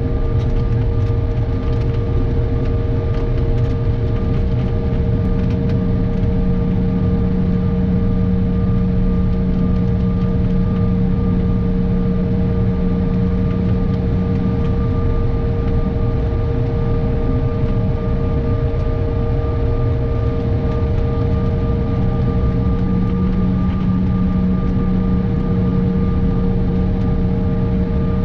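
Cabin noise of a Canadair CRJ-700 taxiing, heard from a rear seat near its tail-mounted GE CF34 turbofans at taxi power. There is a steady rumble under several steady engine tones, and a lower drone that swells in twice.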